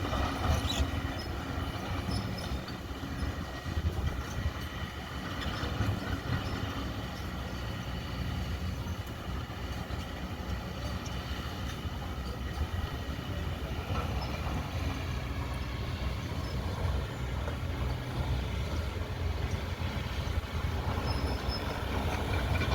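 Hydraulic excavator's diesel engine running steadily under work, with an occasional light knock.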